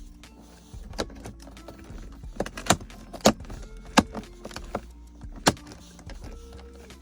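A handful of sharp clicks and knocks, about six in four seconds, as a plastic aftermarket shift knob assembly is handled and seated over the metal gear shifter of a BMW automatic.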